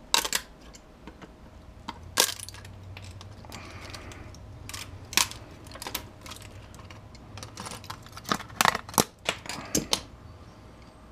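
Pliers breaking up plastic network connectors with metal pins: scattered sharp clicks and small metallic clinks, a few spread out and then a quick cluster near the end.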